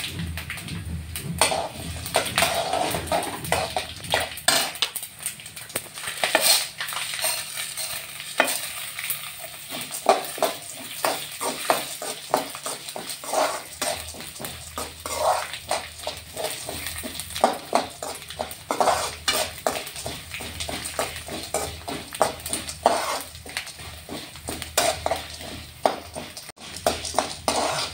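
Metal spoon stirring and scraping whole spices, dals and rice in a metal kadai, with repeated irregular scrapes and clinks over a light sizzle of the hot oil they are roasting in.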